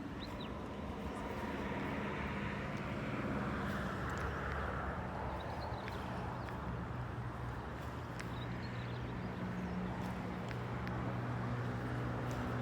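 An engine running steadily, its low hum holding throughout, with faint bird chirps and a few light clicks.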